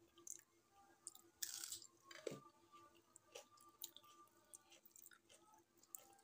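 Faint eating sounds of rice and dal eaten by hand: soft chewing and small wet mouth clicks, with a short louder swish about one and a half seconds in.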